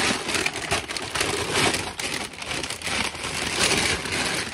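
Continuous rustling and crackling noise, with many short irregular crackles.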